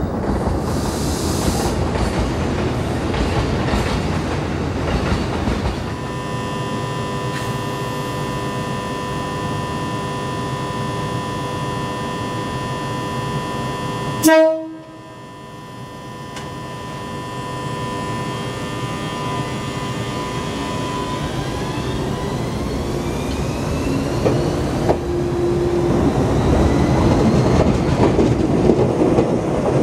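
The Joshin Electric Railway 250 series electric train stands humming with steady tones, then sounds its horn in one short, loud blast about halfway through. It then pulls away: its motors whine, rising in pitch, and its wheels clatter louder as it passes close by.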